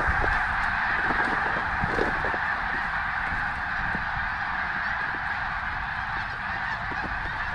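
A large flock of snow geese calling all at once, a dense, steady din of overlapping high calls.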